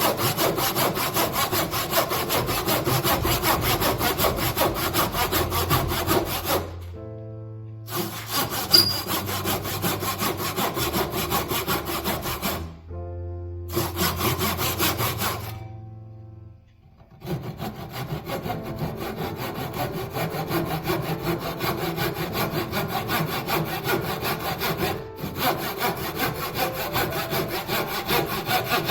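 Saw cutting through wood in quick, even strokes, stopping briefly three times. Soft background music can be heard in the pauses.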